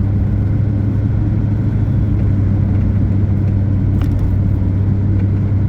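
Steady low drone of a vehicle's engine and tyres, heard from inside the cab while driving on snowy roads, with a light click about four seconds in.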